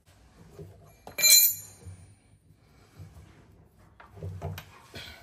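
A sharp metallic clank with a high ringing tail about a second in, then scattered lighter knocks and clinks of steel, as a gear puller is worked with a spanner to draw a stuck taper-lock pulley off the lathe's motor shaft.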